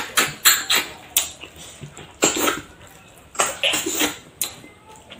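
Close-up eating sounds of people eating rice and curry with their fingers. Short, irregular mouth smacks and chewing noises come with soft clicks of fingers and food against plates, and there is a longer smacking noise about two seconds in.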